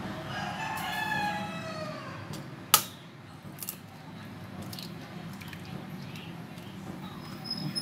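A rooster crows for about two seconds. Then comes one sharp tap, the loudest sound, and a couple of fainter taps as an egg is cracked against a fork.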